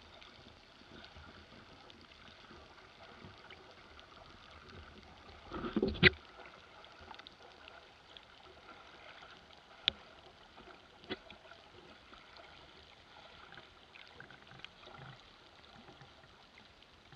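Underwater ambience: a faint, steady water noise. A muffled burst with a deep thump comes about six seconds in, and two short sharp clicks follow a few seconds later.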